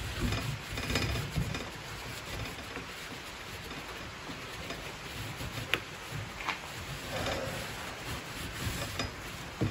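A rag rubbing excess wood finish off the carved, beaded wooden frame of an antique bed crown, with a few light clicks, the sharpest about halfway through, over a steady hiss of heavy rain.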